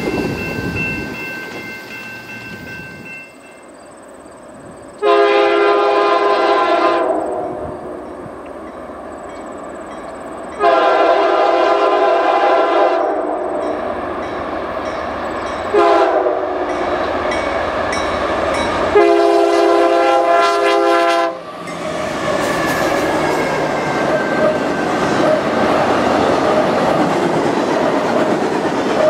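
Diesel locomotive air horn sounding the level-crossing signal as a freight train approaches: two long blasts, one short and a final long one. The train then passes with the steady noise of its wheels on the rails.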